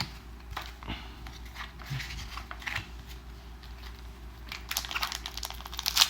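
Foil Magic: The Gathering booster pack wrapper crinkling as it is handled and cracked open, with light rustles at first and denser, louder crinkling near the end.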